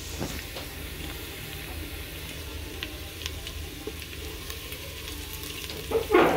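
Food frying in a pan: a steady sizzle with a few light clicks, and a brief louder noise near the end.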